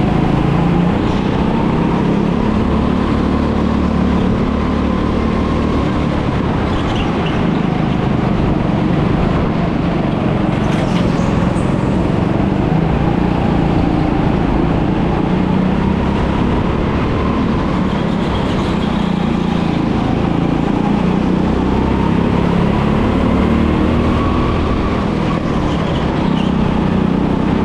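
Go-kart engine running continuously under a dense, loud noise, its pitch rising and falling as the revs change through the track's corners and straights.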